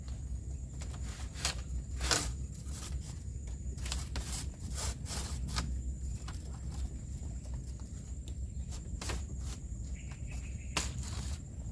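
Irregular clicks and knocks from someone moving and handling things at a camp, over a low steady rumble, with a thin steady high tone and a short higher tone about ten seconds in.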